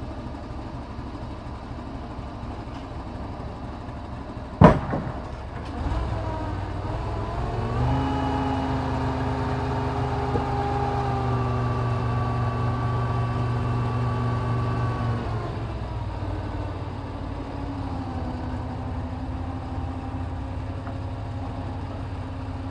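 A truck crane's diesel engine running steadily, with one sharp loud knock about five seconds in. The engine then revs up and holds a higher steady drone for about eight seconds before settling back to a lower run, as it does when driving the crane during the unloading of concrete blocks.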